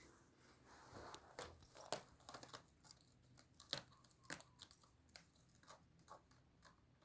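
Faint, irregular taps, scratches and rustles of a kitten playing, coming in quick scattered clusters.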